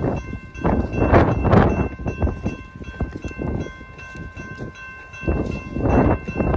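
Gusts of wind buffeting the phone's microphone, loudest about a second in and again near the end. Under them runs a faint, steady ringing tone of several pitches.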